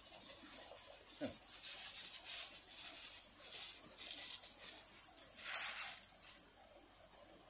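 Dry rustling and pattering of seed being flung by hand from a paper bag and scattering onto dry, straw-covered soil, with steps in the loose mulch. Near the end it drops away, leaving a faint, steady, high insect trill.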